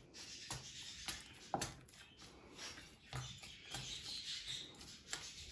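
Faint wet squishing and rustling of a hand kneading a moist mash of grated beetroot, crushed egg and eggshell in a plastic tub, with a few light clicks.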